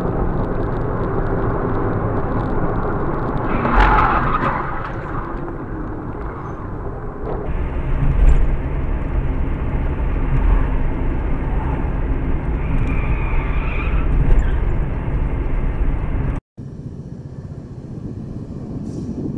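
Car running on the road, heard from inside the cabin through a dashcam microphone: steady engine hum and road noise, with a brief louder sound about four seconds in. The sound changes abruptly twice, where one dashcam clip cuts to the next.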